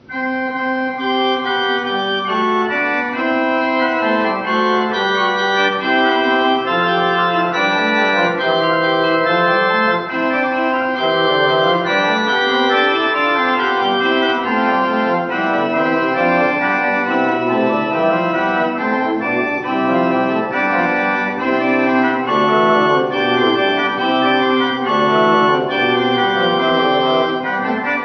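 1808 Christian Dieffenbach tracker-action pipe organ playing a piece, several pipe notes sounding together in held chords and moving lines. The music begins abruptly and runs on without a pause.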